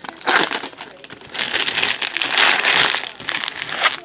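Plastic or foil packaging of trading cards crinkling and crackling as it is torn and crushed open. It comes in two spells, a short one at the start and a longer, louder one from about a second and a half in.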